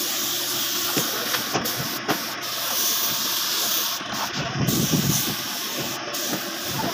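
Gravity-feed compressed-air paint spray gun hissing steadily as it sprays, the hiss breaking off briefly several times.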